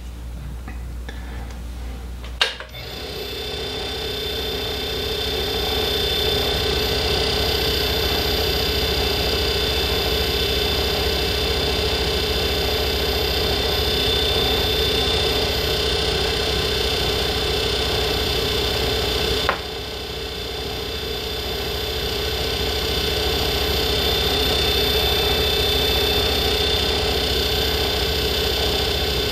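Small metal lathe switched on with a click about two seconds in, its motor running up over a few seconds and then running steadily with a hum and a high whine, spinning a nickel silver ferrule held in its chuck. About two-thirds through there is a click and a brief drop in level, after which it builds back up.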